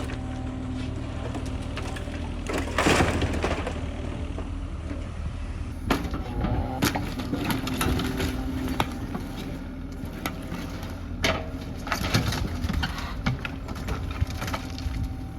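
Wooden cabin being torn down: timber cracking, splintering and crashing, with one big crash about three seconds in and many sharp cracks after, over a machine engine running steadily.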